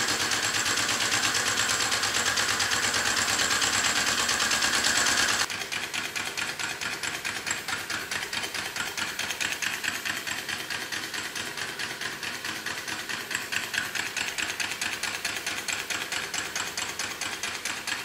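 Homemade single-cylinder steam engine, built from sewing machine parts, running fast with a rapid, even chuffing tick and a steady hiss. About five seconds in the level drops suddenly and a quieter, steady rapid ticking carries on.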